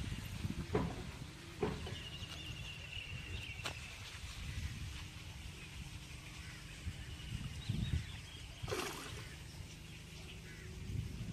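Outdoor ambience: a steady low rumble, a few sharp clicks and knocks, and a faint high trilling call in the first half.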